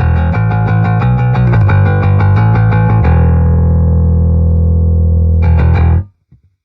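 Fender Precision Ultra electric bass played through a Peavey VB-2 all-tube bass amplifier: a run of quick plucked notes, then a held note ringing for about two seconds, a short flurry of notes, and then the sound cuts off suddenly about six seconds in.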